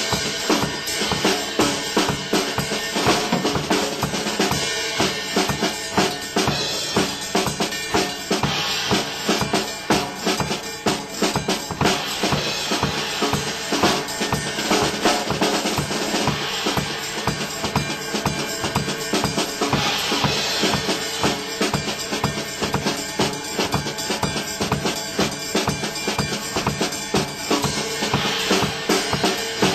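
Drum kit played continuously in fast, busy patterns on kick drum, snare and cymbals, with a cymbal wash that swells every few seconds.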